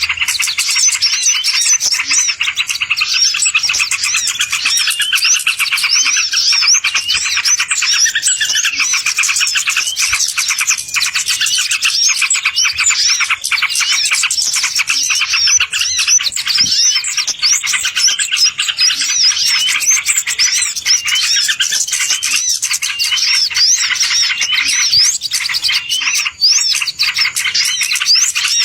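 Dense, continuous chirping and twittering of many small songbirds, their rapid high calls overlapping throughout, as played from a bird-luring (pikat) recording.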